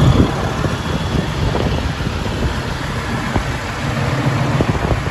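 Road traffic noise with wind buffeting the microphone.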